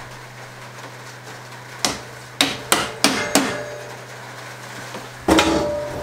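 A quick run of five sharp knocks, like taps from a hammer or mallet, over a steady low hum. About five seconds in comes a louder bang, followed by a steady ringing tone.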